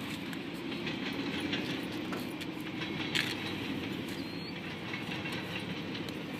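Freight cars of a BNSF train rolling past: a steady rumble of wheels on rail, with a few faint clicks of wheels over rail joints.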